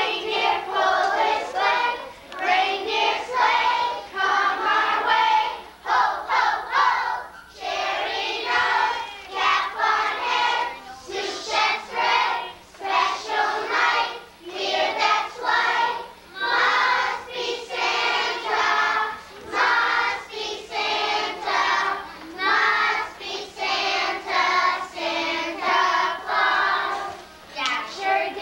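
A group of young children singing together as a choir, in short phrases with brief breaks between them.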